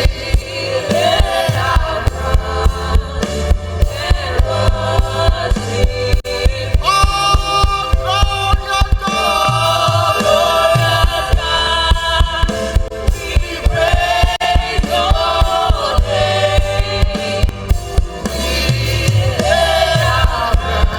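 Live gospel worship music: a drum kit keeps a steady beat under a sung melody with choir voices.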